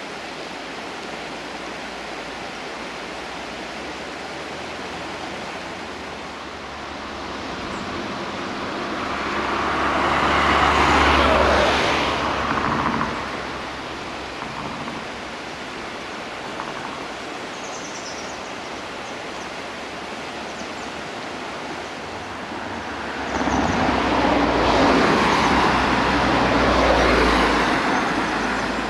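Two road vehicles pass one after another, each a low engine rumble and tyre noise that swells over a few seconds and fades, over a steady rushing background noise.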